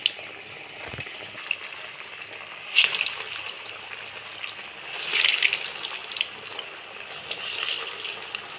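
Cassava and lentil vadai patties deep-frying in hot oil in a kadai, freshly dropped in and bubbling hard: a steady sizzling hiss with louder spells of crackle about three seconds in and again about five seconds in.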